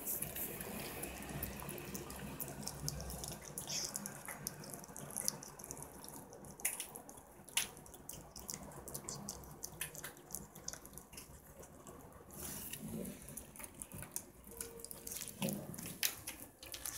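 Serval kittens chewing and gnawing raw chicken necks, a run of short, irregular clicks and smacks as they tear at the meat and bone.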